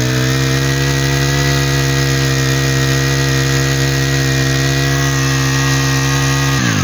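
A 25cc four-stroke brush cutter engine held at high revs, running steadily. Near the end the throttle is let off and the revs fall away.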